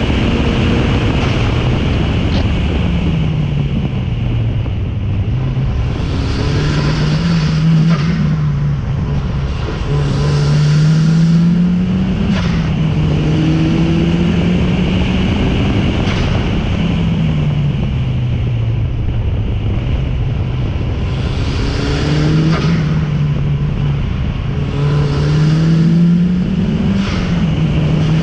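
Race car engine on a hill climb run, revving up and easing off again and again, its pitch rising and falling every few seconds as it accelerates and lifts between bends.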